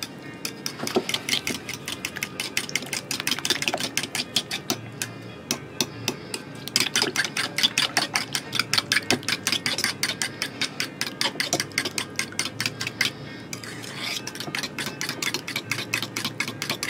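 A fork beating eggs, sugar, olive oil and lemon zest by hand in a mixing bowl, its tines clicking rapidly against the bowl about six times a second, with two brief lulls. The mixture is being beaten until the sugar dissolves.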